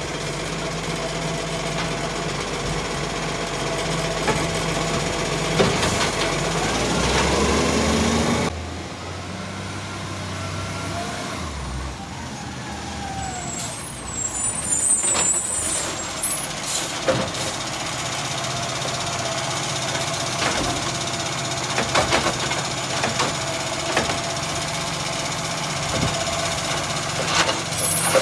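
Iveco side-loader garbage truck at work: its diesel engine runs steadily while the hydraulic side arm lifts and tips a wheelie bin, with a rising whine about seven seconds in. After a sudden change the truck moves up to the next bins with a hiss of air brakes. Scattered metal clunks follow as the arm reaches out for the next bin.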